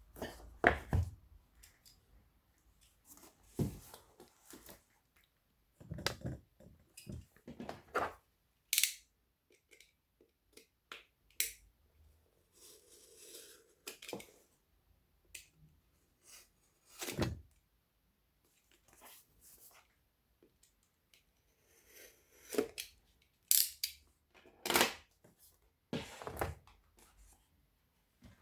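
Packaging of a new phone being handled and opened by hand: a scattered series of sharp clicks and knocks of cardboard and plastic, with stretches of tearing and rustling.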